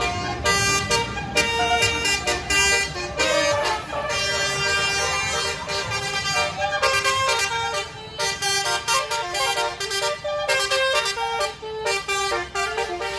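Tour bus's basuri musical air horn playing a melody, its notes changing in quick steps, over the rumble of traffic.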